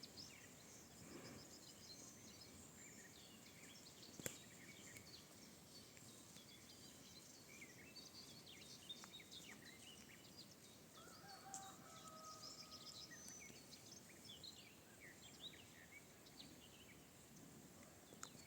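Faint birdsong: many small birds chirping over a low outdoor hiss, with one sharp click about four seconds in.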